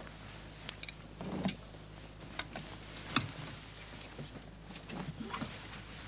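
Clothes hangers sliding and clicking against a metal closet rail as garments are shoved along it, with short scrapes and fabric rustling between the clicks. A steady low hum lies underneath.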